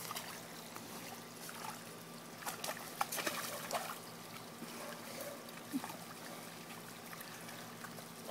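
Water from a garden hose trickling and splashing steadily into a muddy pig wallow, with a cluster of short sharp splashes about three seconds in.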